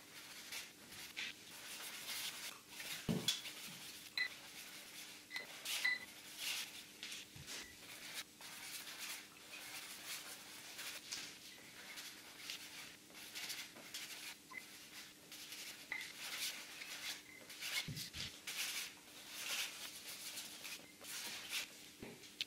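A paintbrush scrubbing paint across a board in quick, repeated scratchy strokes, with a few short light clinks in between and a faint steady hum underneath.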